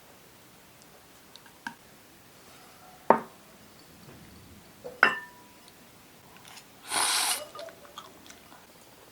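Tableware knocking in a small room: a faint click, then two sharp clinks about two seconds apart, each with a short ring, followed by a brief hiss about seven seconds in.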